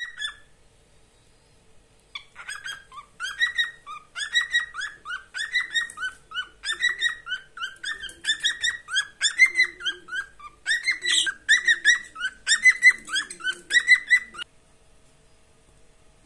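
Cockatiel chirping: a long, fast run of short, high chirps, several a second, starting about two seconds in and stopping abruptly near the end.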